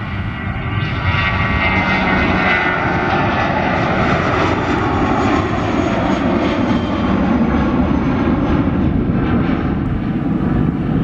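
Twin turbofan engines of a Vueling Airbus A320-family jet at takeoff thrust as it lifts off and climbs away. The loud, steady jet noise grows over the first second and then holds.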